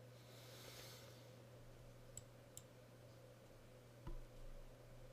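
Near silence: room tone with a steady low hum, two faint clicks a little after two seconds in and a soft thump about four seconds in.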